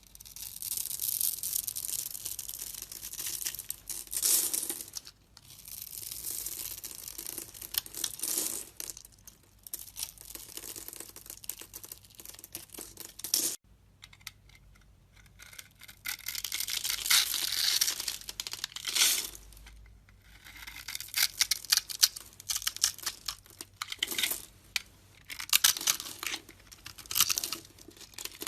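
A blade carving into a bar of soap in quick scraping, cutting strokes. The strokes come in runs of a few seconds, broken by short pauses.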